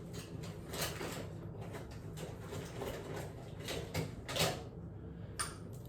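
Quiet handling noises: a few short, soft rustles and clicks over a steady low room hum.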